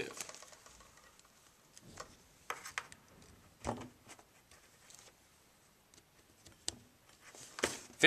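Faint, scattered light clicks and taps from handling a small 12-volt air horn compressor while pushing the red and black wire connectors onto its terminals.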